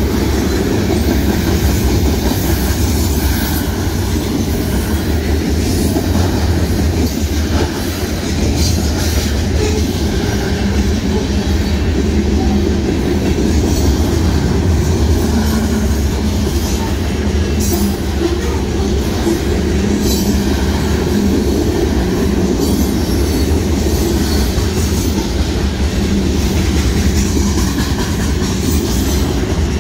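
Freight cars of a Union Pacific mixed freight train rolling past at speed, a loud steady rumble of steel wheels on the rails.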